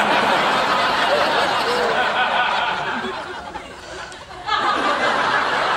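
Studio audience laughing: a long, loud wave of laughter that dies down a little before 4 seconds in, then a fresh burst of laughter about 4.5 seconds in.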